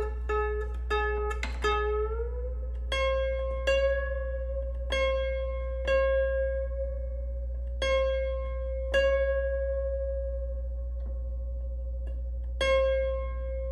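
A newly installed steel string on an 1874 John Broadwood grand piano, plucked by finger again and again as it is tightened toward pitch. In the first two seconds the plucks come quickly and the note slides upward as the string is pulled tighter. After that the note holds steady and each pluck rings out.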